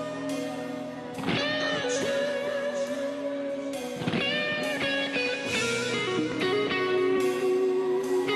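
Instrumental band music led by electric guitar, with chords struck and left ringing, fresh ones about a second in and again halfway through.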